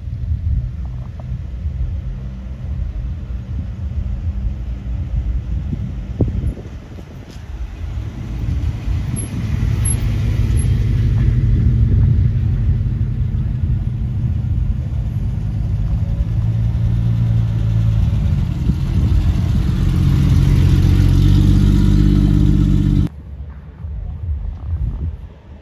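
Classic cars driving slowly past, their engines rumbling low. The sound swells as each car draws near, twice, and then cuts off suddenly near the end.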